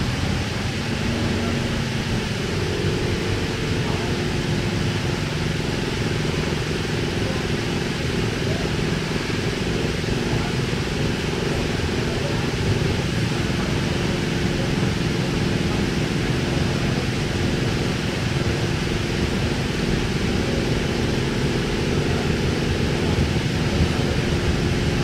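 Running noise inside a K-set double-deck electric suburban train carriage under way: a steady rumble of wheels on the rails, with a steady hum joining about two seconds in.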